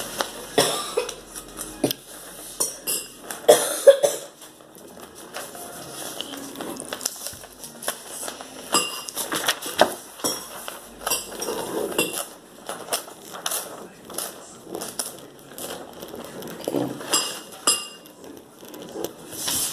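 Irregular light clinks and knocks, like dishes and cutlery being handled, with faint voices at times.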